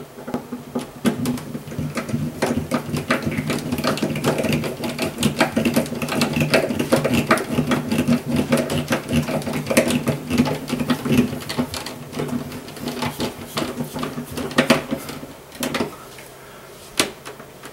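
Hand screwdriver driving a screw through a plastic alarm speaker housing into the wall: a fast, continuous run of small clicks and grating that stops about sixteen seconds in.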